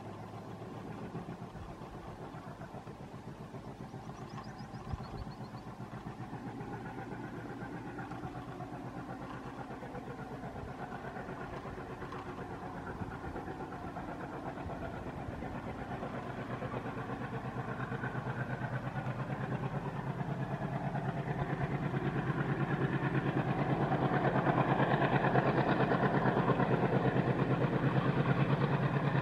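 ALCO WDM3A diesel locomotive's turbocharged 16-cylinder ALCO 251 engine chugging under load as it hauls a passenger train, with a fast, even exhaust beat. It grows steadily louder as the locomotive approaches and is loudest near the end.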